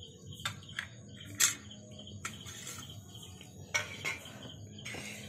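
Insects chirping in a fast, even pulse with a steady high whine, over a low hum. Several sharp clicks and smacks of eating cut through, the loudest about a second and a half in.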